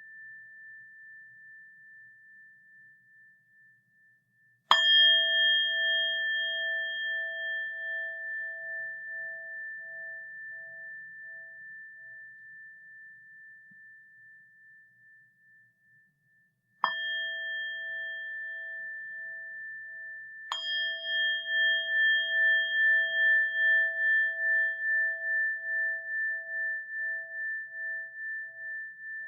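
A rin (Japanese Buddhist bowl bell) struck three times, each strike ringing on in a long, slowly fading tone with a pulsing waver. The tail of an earlier strike fades out over the first few seconds, and the third strike lands while the second is still ringing.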